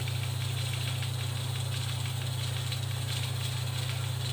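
Steady low hum, as from a small motor or appliance, with a faint hiss over it and no change in level.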